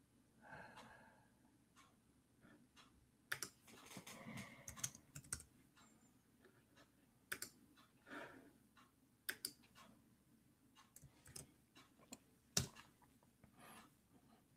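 Faint typing on a computer keyboard: scattered, irregular key clicks with a few soft muffled noises between them.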